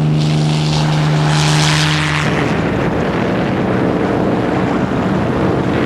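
Propeller aircraft engines running with a steady pitched hum. About two seconds in, the sound turns rougher and noisier.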